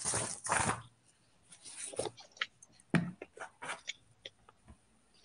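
Handling noises picked up by a video-call microphone: a rustle in the first second, then scattered small clicks and taps.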